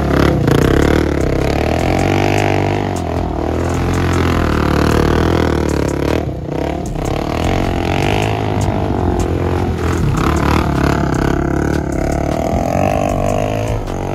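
Suzuki LT-Z400 quad's single-cylinder four-stroke engine revving up and down, rising and falling every couple of seconds as it drifts in circles, with gravel and dirt spraying from the spinning rear tyres.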